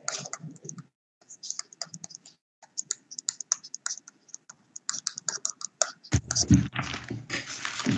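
Irregular light clicks and taps in quick runs, broken by short gaps of silence, with a louder rustling noise in the last two seconds.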